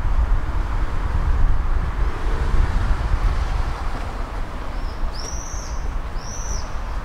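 Tram running along the track: a steady low rumble with rolling noise. Near the end come two short, high arching chirps about a second apart.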